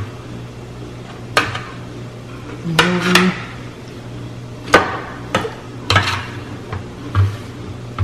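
Metal kitchen tongs clacking and scraping against a metal sheet pan as pieces of poultry are turned over: about seven or eight sharp clacks at irregular intervals.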